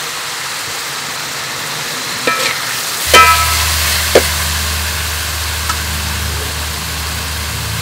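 Shredded ginger sizzling as it fries in a wok, with a metal spatula stirring it and clanking against the pan. The strikes ring briefly, and the loudest comes about three seconds in.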